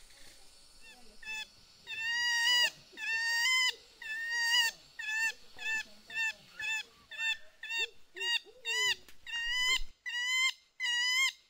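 A man calling through his cupped hands: a run of short, pitched honking calls. They begin faintly and grow louder, coming about once a second at first, then quicker and shorter at about two a second.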